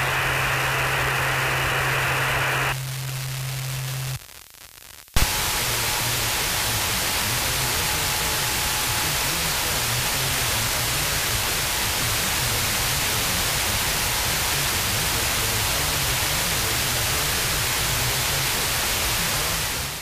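FM radio audio off a software-defined radio, with no programme, during an overlap relay glitch on KCRW 89.9 FM. For about the first four seconds there is a low buzzing hum under filtered noise, then a brief dropout and a click about five seconds in. After that comes steady, loud hiss of static.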